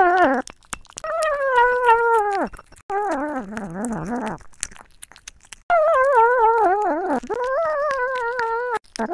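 A dog howling and whining in a run of long, wavering calls, about five of them, each a second or two long. Their pitch sags and trails off at the ends, and one in the middle dips lower and warbles.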